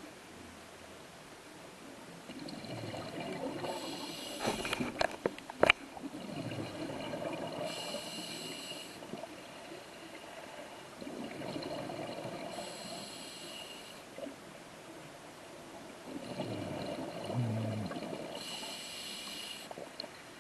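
Scuba diver breathing through a regulator underwater: a hissing inhale and a bubbling exhale in turn, about one breath every five seconds. A few sharp clicks come about five seconds in.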